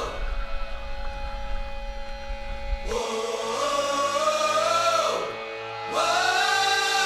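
Background music: a song with two long, held sung notes over steady sustained instrumental tones.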